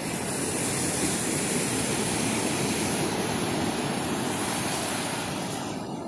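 Ocean waves breaking and foaming surf rushing up over wet sand: a steady, hissing rush of water that eases off near the end.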